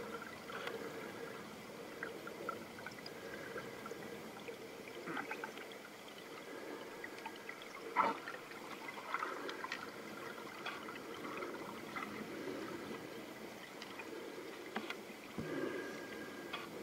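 Pond water heard through a submerged camera: a muffled, even wash of water with scattered small clicks and ticks, and one sharper click about eight seconds in.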